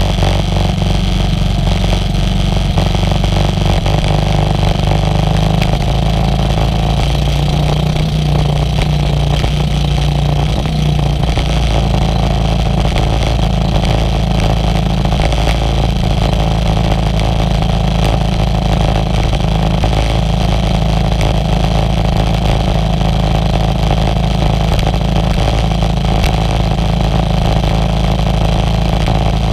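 Small outrigger boat's engine running steadily at speed, with water spray hissing off the hull.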